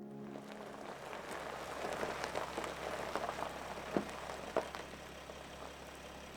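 Open campfire crackling: a steady hiss with scattered small pops and a couple of sharper snaps about four seconds in.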